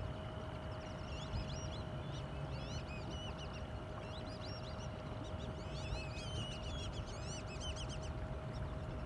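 Many birds chirping in quick short notes, busiest a little past the middle, over the steady low running hum of a boat on the water with a faint constant whine.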